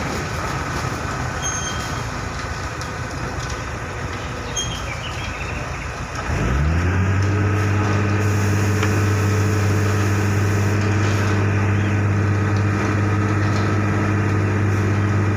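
Diesel truck engine running amid steady machinery noise. About six seconds in, its speed rises quickly, then holds at a steady, louder hum.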